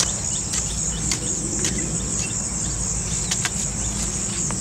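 A hoe chopping into dry soil in several sharp strikes, at irregular intervals, over a steady high-pitched insect trill.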